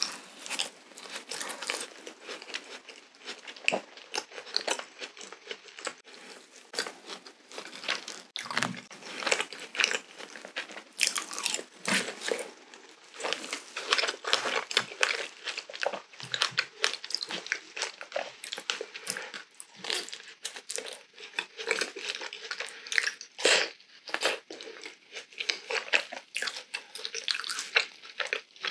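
Close-miked chewing and biting of soft glazed doughnut pieces dipped in chocolate spread, heard as many short, irregular mouth clicks.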